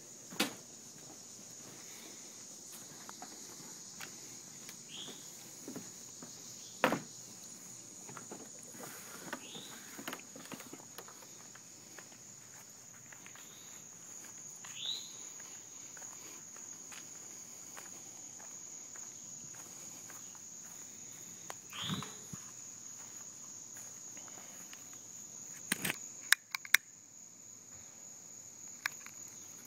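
Steady, high-pitched chorus of insects in a summer backyard, with footsteps and scattered clicks as someone walks. There are a few short falling squeaks, and a quick cluster of sharp knocks near the end.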